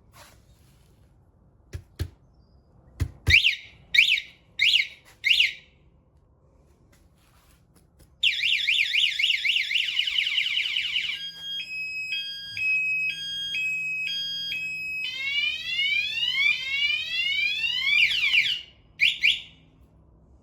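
Scooter anti-theft alarm set off by someone disturbing the scooter. A few knocks are followed by four short rising warning chirps. After a pause, the full loud siren sounds for about ten seconds, cycling from a fast warble to a stepped multi-tone pattern to rising sweeps, and ends with one last chirp. The chirps are the alarm's warning at a first touch, and the full siren is its response when the scooter is touched again.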